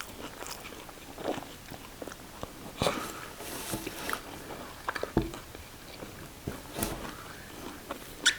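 Close-up eating sounds: chewing and biting into fries, sausage and salad, with irregular soft clicks and smacks every second or two.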